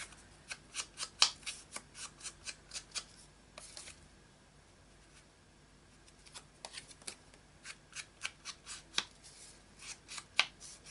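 Foam ink blending tool dabbed and rubbed along the edge of a paper tag to ink it: quick papery scuffs, about three a second, with a pause of about two seconds in the middle.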